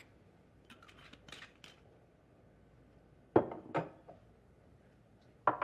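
Glassware clinking and knocking: a few soft ticks in the first two seconds, then two sharp clinks with a short ring about three and a half seconds in, and another near the end.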